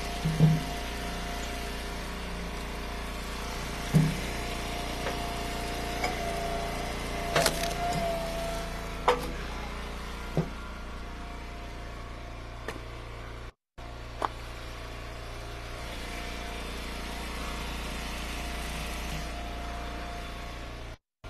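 Eastonmade Ultra wood splitter's engine running steadily with a faint steady whine, while firewood pieces knock sharply now and then as rounds are split and stacked. The sound drops out briefly about halfway through.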